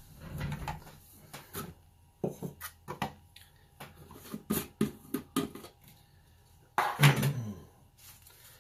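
A series of light clicks and knocks from art supplies being handled and set down on the desk. Near the end comes the loudest sound, a brief noise with a falling pitch.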